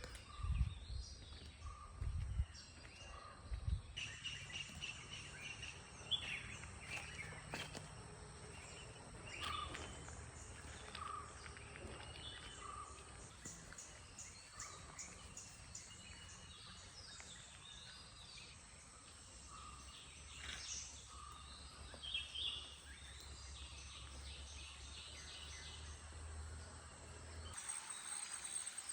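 Mixed birds calling in the morning, with short notes repeated in series and higher chirps scattered between them, over a low rumble. Near the end a high, fast-pulsing insect chirring starts up.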